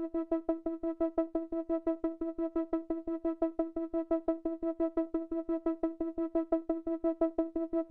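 Background electronic music: a single synthesizer note repeated in quick, even pulses, about six or seven a second.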